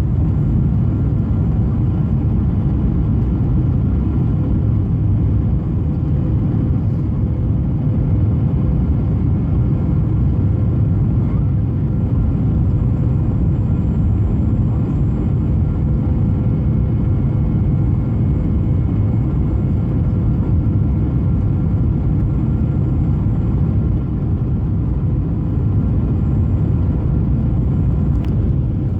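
Boeing 737 cabin noise on descent: a steady low rumble of engines and airflow, with a faint steady hum above it.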